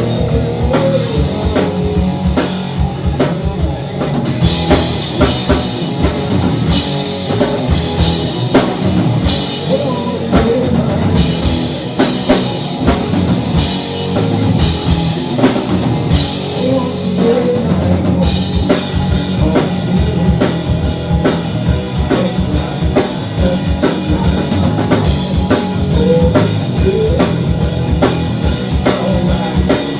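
Live rock band playing loud: a drum kit keeps a steady beat under electric guitar, with cymbals washing in and out and then ringing continuously through the second half.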